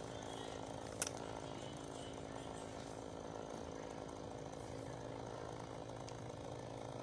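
A heat gun's small blower motor running with a steady whirring hum, and one sharp click about a second in.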